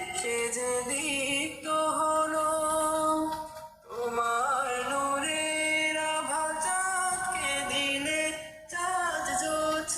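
A nasheed sung by a solo voice, a Islamic devotional song of gratitude, with long held, gently bending notes and short breaks for breath about four and nine seconds in.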